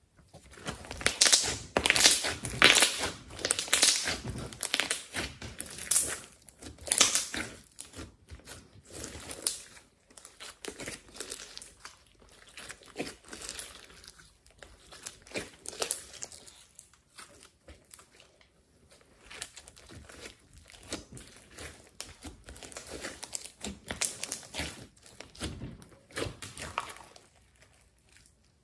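Glossy slime mixed with clay and glitter being stretched and pressed by hand, giving dense sticky crackles and small pops. The crackling is thickest in the first few seconds, then comes in looser clusters.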